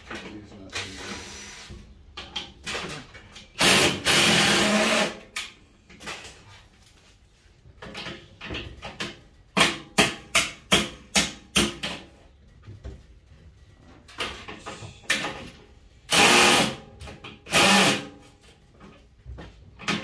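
Cordless power drill spinning in short runs, driving out the fasteners that hold a furnace blower motor in its sheet-metal housing: one longer run about four seconds in and two shorter ones near the end. In between comes a quick series of sharp clicks and knocks.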